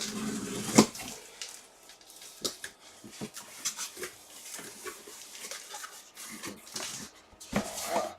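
A cardboard box being cut open with a dull knife and handled, heard as irregular scraping, rustling and sharp clicks of cardboard and packaging, the loudest just under a second in.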